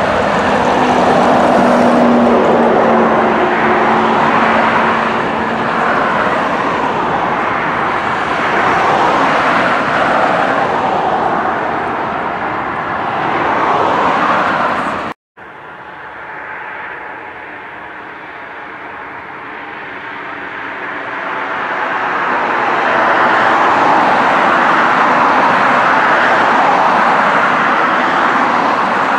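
Jet airliner engines at climb power as a twin-engine jet climbs away, with a steady roar. A sudden cut about halfway through is followed by quieter jet engine noise from a British Airways Airbus A320-family airliner on the ground, which swells back up to full level and holds.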